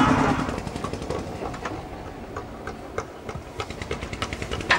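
A tourist riverboat's motor running, then dropping away within the first half second. After it come scattered light clicks and knocks at an uneven pace, the sharpest near the end.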